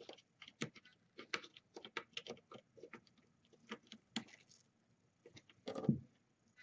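Faint, irregular small plastic and metal clicks and taps of a SO-DIMM laptop RAM stick being handled and pressed into its slot on a mini PC motherboard, with one louder bump near the end.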